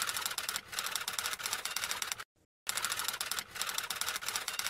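Rapid, dense clatter of clicks, like fast typing, in two identical stretches of a bit over two seconds. Each stretch cuts off abruptly, the mark of an edited sound-effect loop.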